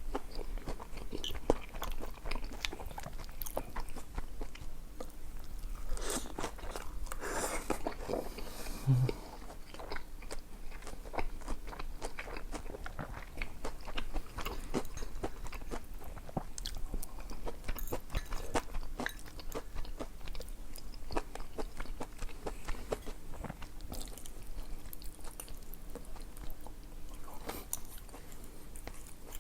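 A person chewing and biting food close to the microphone, with crunches and a string of small wet clicks, in mukbang style.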